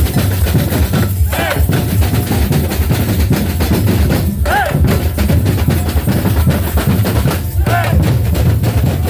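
Batucada-style drumming: bass drums and snares playing a steady, dense rhythm. Short whistle-like tones sound about every three seconds.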